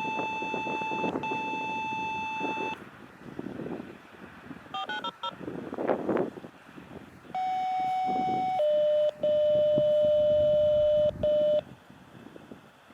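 Electronic tone signals: a steady beep held for about two and a half seconds with a short break, a quick run of short dial-tone-like beeps about five seconds in, then a louder tone that steps down to a lower pitch, holds for about three seconds with one brief gap, and cuts off.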